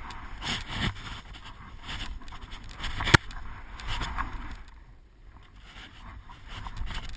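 Skis swishing and scraping through deep snow in a run of turns, over a low rumble of wind on a head-mounted camera, with one sharp knock about three seconds in. The sound drops away for a moment around five seconds in as the skis slow.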